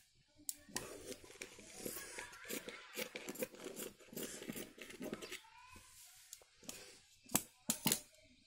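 Tailor's scissors snipping through folded printed kurti fabric, a run of quick cuts for about five seconds, then two sharp clicks near the end.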